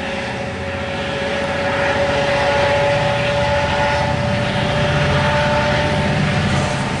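Diesel locomotive of a MARC commuter train working under power as it moves away, its engine throbbing low with a steady whine over it.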